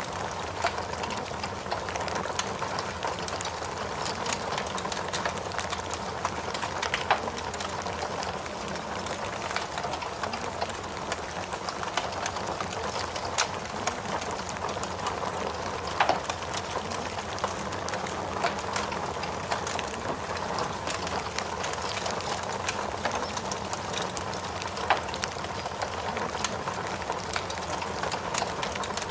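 Steady rain hiss with a crackling fire, irregular sharp pops standing out here and there.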